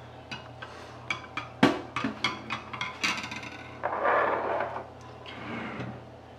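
Metal spoon clinking against a glass measuring jug while stirring a liquid marinade, a quick run of clinks followed by a louder scraping, sloshing stir about four seconds in.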